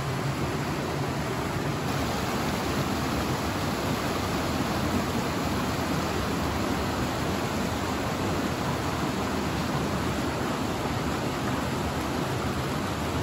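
Small waterfall pouring into a rock plunge basin: a steady, even rush of falling and churning water.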